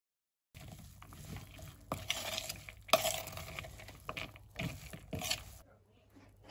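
A spoon stirring chatpatey, a dry mix of crunchy noodles and chopped vegetables, in a bowl: a scraping rustle with several clinks of the spoon against the bowl. It stops about five and a half seconds in.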